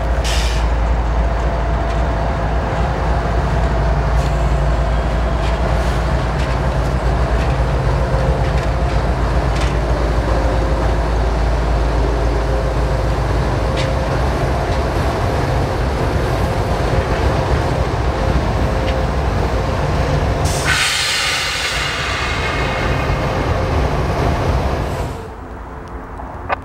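CSX freight train passing, its diesel locomotives running with a steady low drone. About three quarters of the way through, the loud hiss and screech of steel wheels on the rails takes over, then cuts off suddenly.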